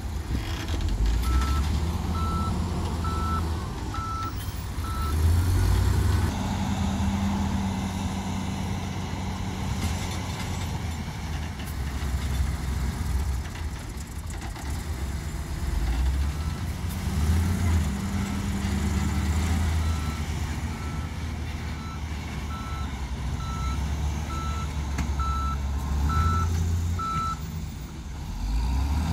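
Heavy diesel dump truck engine running and revving up in places, with a reversing alarm beeping about once a second: a few beeps near the start, then a longer run of about ten seconds later on.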